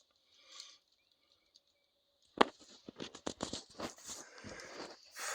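Cardboard firework boxes being handled: a sharp knock about two and a half seconds in, then a run of clicks and rustling as the boxes are shifted. Before the knock only a faint steady high hiss.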